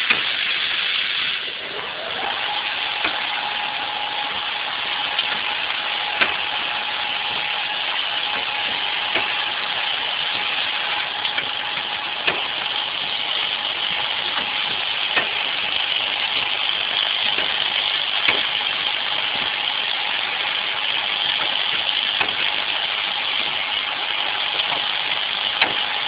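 Fully automatic optical fiber plug pad printer running: a steady mechanical hiss and hum with a steady whine that starts about two seconds in, and a short click about every three seconds.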